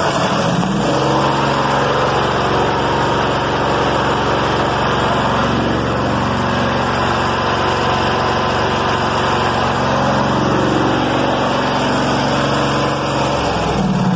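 Craftsman YT4000 riding mower's twin-cylinder Briggs & Stratton engine running steadily just after starting. The owner hears a miss in it and traces it to a weak spark on one cylinder.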